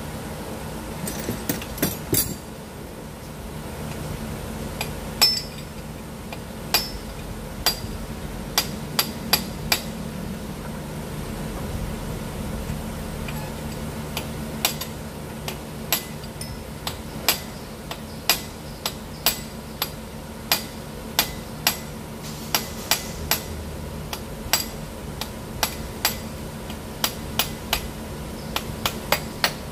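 Sharp metallic clinks of a hand wrench on the A/C line fittings beside the compressor, coming roughly every half second to a second, over a steady low hum.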